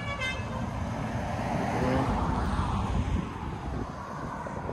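A motor vehicle driving past. Its noise swells to a peak about two seconds in, then fades.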